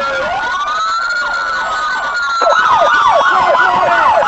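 Several emergency-vehicle sirens sound at once: a slow rising and falling wail, joined about two and a half seconds in by a louder, fast yelp that sweeps up and down about three times a second.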